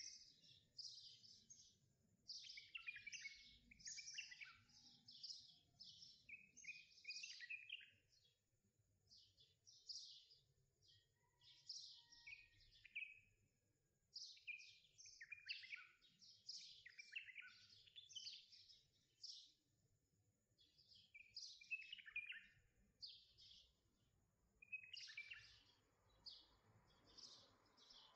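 Faint birdsong: clusters of quick high chirps and short trills, one after another throughout, with a soft rustling noise under them near the end.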